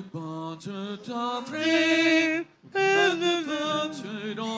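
A voice singing long held notes, with a short break about two and a half seconds in.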